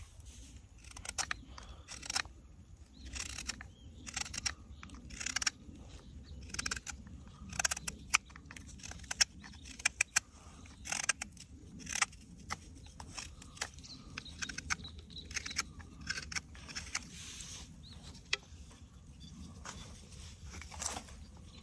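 Carving knife shaving a walnut spoon, short scraping cuts in walnut wood with sharp clicks, irregular, about one or two strokes a second.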